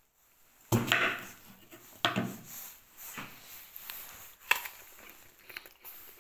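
Kitchen knife cutting through a crisp Cripps Pink apple and knocking on a wooden cutting board: a loud crunching knock under a second in, another about two seconds in, a sharp one about four and a half seconds in, and lighter taps between.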